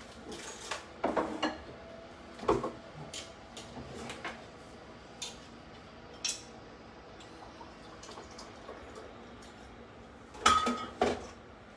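Kitchenware and glassware being handled: scattered light clinks and knocks, then a louder clatter with a brief ringing clink about ten and a half seconds in.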